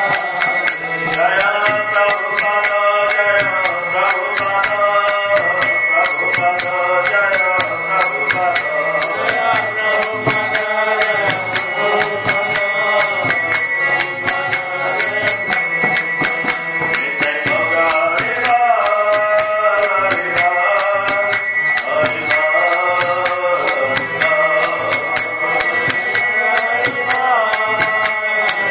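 Devotional chanting: a man's voice singing a melodic kirtan in repeated phrases over fast, steady clashing of small hand cymbals (kartals) that keep ringing.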